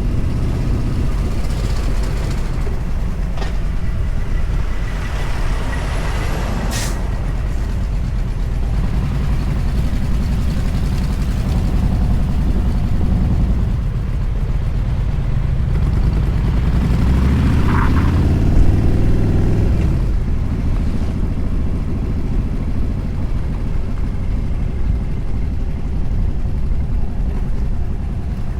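Motorcycle engine and wind noise at road speed, with heavy wind buffeting the microphone. A brief sharp hiss comes about a third of the way in. Past the middle the engine note climbs for a few seconds as it accelerates, then drops back.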